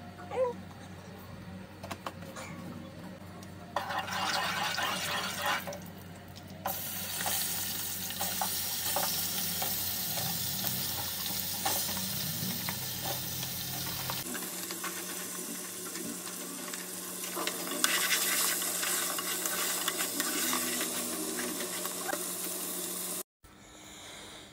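Crab pieces sizzling as they fry in hot oil in a pot, stirred now and then. The sizzle comes in after a few seconds, briefly at first and then steadily, and cuts off shortly before the end.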